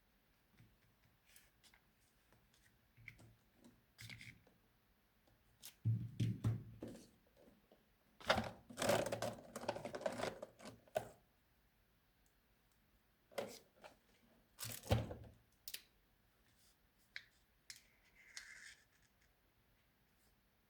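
Hands working craft materials, with small clicks and scratchy rustling bursts, the longest a few seconds after the start and another short pair past the middle.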